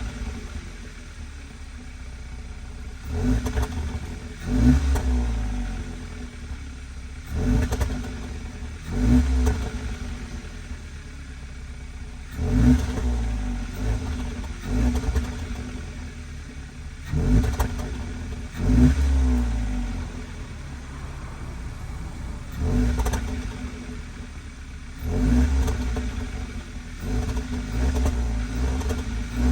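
2013 Hyundai Veloster engine and exhaust revved in short blips about every two to three seconds, each rev falling back to idle with snapping, crackling pops from the exhaust.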